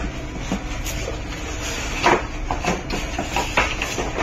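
Handling noise as a plastic-wrapped laptop is lifted out of a moulded paper-pulp tray: crinkling of the plastic film with irregular scrapes and knocks, the loudest about two seconds in.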